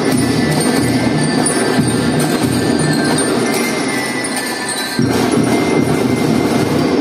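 Children's marching drum band playing: a steady drum rhythm under bell-like metallic melody tones. The band dips briefly, then comes back in loud and all together about five seconds in.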